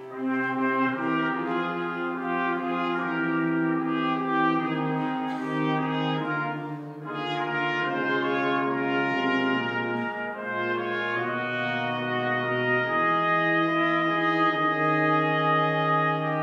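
Brass quartet playing a slow piece in long held chords, with brief breaks between phrases about seven and ten seconds in.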